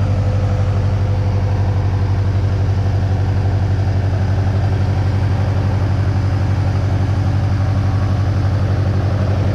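Engine running at a steady idle with an even, rhythmic pulsing beat and an unhealthy sound, which the owner takes for rod knock.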